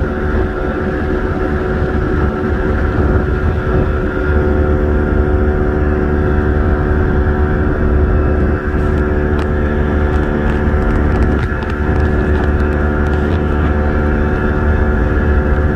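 An engine running steadily at a constant speed, a loud low drone that holds one pitch, with a few faint ticks about nine to thirteen seconds in.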